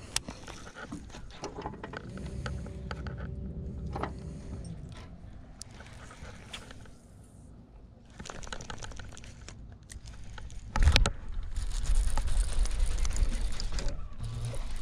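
Handling sounds of a baitcasting rod and reel in a small plastic boat: a sharp click as the cast is released, scattered reel and hull clicks and knocks while the jig is worked, then a loud knock just before eleven seconds in followed by louder steady noise.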